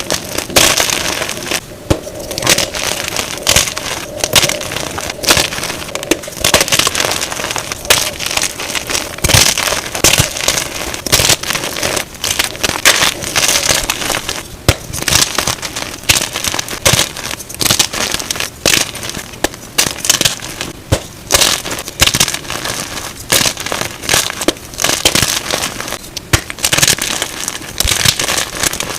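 Blocks of Plain Jane gym chalk being crushed and crumbled, a continuous dense crackling and crunching of many small cracks, sped up to double speed.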